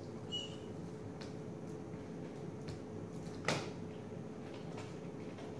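Quiet room tone with a steady low hum, a few faint clicks of laptop keys being typed, and one louder sharp click about three and a half seconds in. A brief high squeak just after the start.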